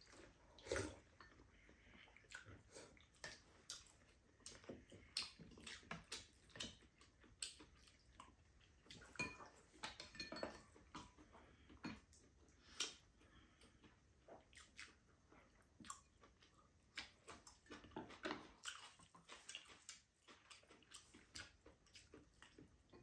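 Faint eating sounds: chewing of stir-fried cabbage and fish cake, with many small clicks of metal spoons and chopsticks against bowls, scattered irregularly.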